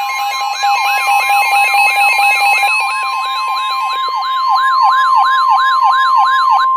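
NOAA Weather Radio warning alarm: a loud, steady 1050 Hz tone layered with a siren-like tone sweeping up and down about three times a second. It signals that a weather warning is about to be read.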